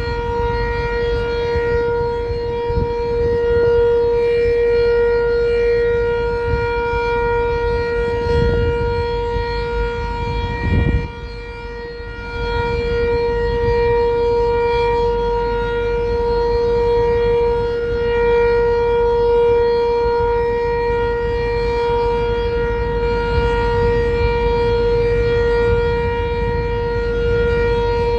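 Sentry 7V8 outdoor warning siren sounding a steady, unwavering alert tone during its test, with a brief dip in level about eleven seconds in.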